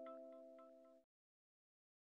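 Faint, fading tail of background music: held notes with a light ticking beat dying away, then cutting off abruptly about a second in.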